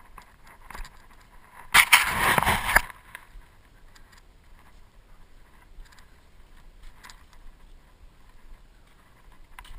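Scraping and scuffing from crawling through a dark tunnel obstacle: a loud rough rustle about two seconds in lasting about a second, then only faint scuffs and small knocks.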